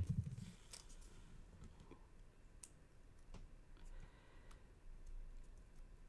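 Faint, scattered clicks and light rustling as small cardstock pieces and a thin acetate strip are handled by hand.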